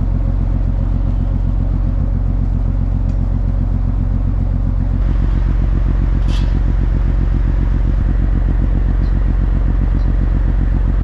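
A machine running loud and steady, with a low hum and a rapid, even pulse; the hum changes slightly about halfway through. A short high hiss sounds a little past the middle.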